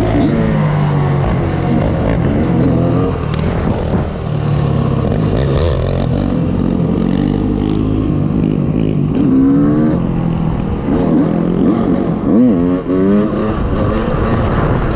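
A 2020 Yamaha YFZ450R SE quad's single-cylinder four-stroke engine revving through an aftermarket full exhaust, its pitch rising and falling over and over, with several quick sharp blips in the second half.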